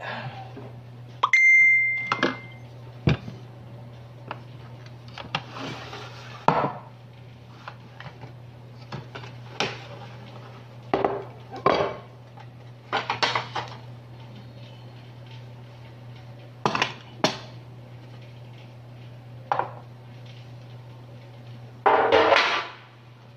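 Dishes and cutlery clinking and clattering on a table as a meal is set out, a series of separate knocks and scrapes. There is one short, clear ring about a second in, and a steady low hum runs underneath.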